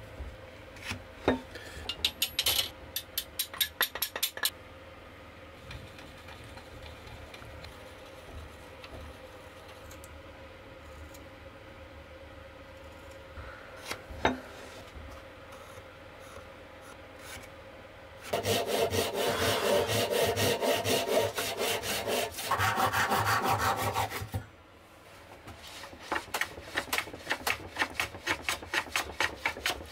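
A backsaw cutting cherry wood by hand. A long, loud stretch of fast sawing runs through the middle, then steady strokes come about three a second near the end. Earlier there is a brief run of quick scratching and a single click.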